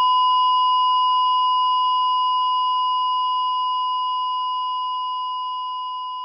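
One long, steady electronic beep at a single pitch, slowly fading out.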